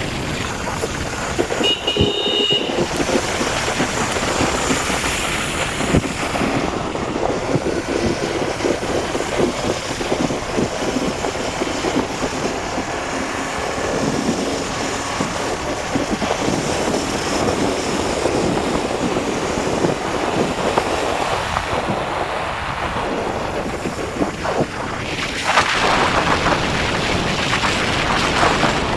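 Wind rushing over the microphone with road and engine noise from a moving motorcycle, growing louder near the end.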